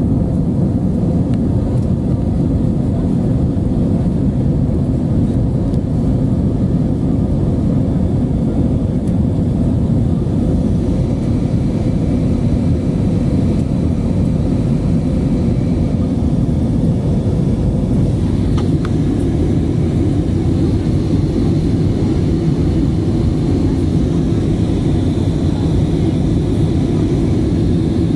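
Jet airliner cabin noise during the climb after take-off: a loud, steady, low rumble of the engines and rushing air. A faint high steady whine joins in for the second half.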